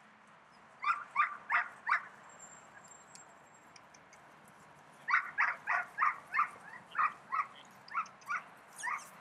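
A dog barking in quick short barks: four in a row about a second in, then a longer run of about a dozen, roughly three a second.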